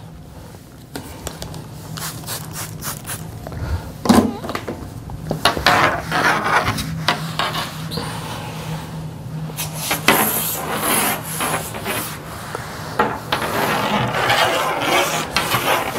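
Microfiber cloth wiping a table top in repeated back-and-forth strokes: a steady run of dry rubbing and swishing.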